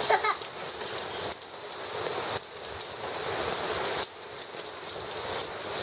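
Heavy rain falling and pattering on surfaces, with a brief voice just at the start.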